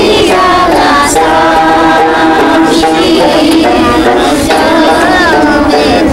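Group of children singing a song together, accompanied by a strummed Tibetan dranyen lute.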